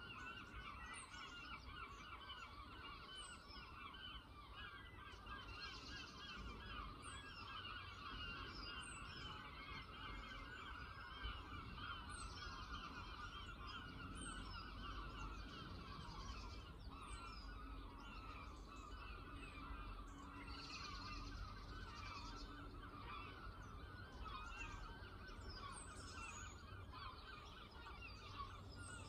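A large flock of birds calling together without a break, many overlapping chattering calls, faint and steady. Over it, a thin high note sweeps down every second or two.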